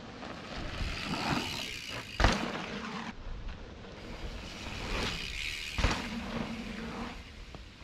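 A bicycle riding fast over dirt jumps: tyre and air rush swells twice, each ending in a hard landing thump, the two landings about three and a half seconds apart.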